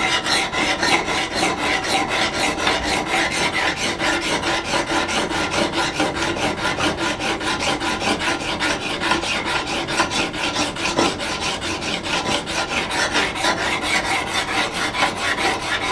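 Coarse side of a wet, double-sided diamond sharpening plate rubbed quickly back and forth along the steel bevel of a hewing hatchet, an even gritty scraping of several strokes a second. This is the coarse stage of dressing the whole bevel flat, before moving to the finer side.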